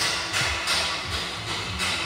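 Toyota Aurion's 3.5-litre V6 engine starting up and running, beginning suddenly.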